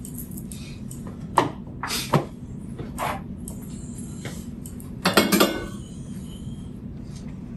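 Kitchenware clinking and knocking as a bowl of soup is being dished up: a few separate clinks, then a louder clatter about five seconds in, over a steady low hum.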